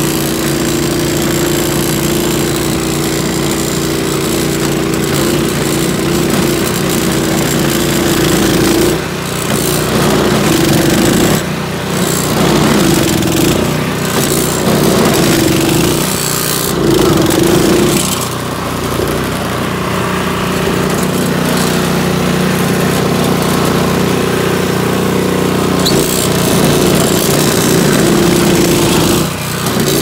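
Toro 621 QZR single-stage snow blower running steadily as it clears snow, its engine note dipping and shifting briefly a few times.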